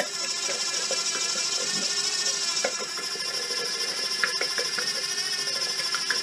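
Cordless drill running steadily, spinning the input shaft of a Honda HRX537 hydrostatic drive to circulate the fresh oil through its pumps during filling. A steady high whine, with a few light clicks from the mechanism.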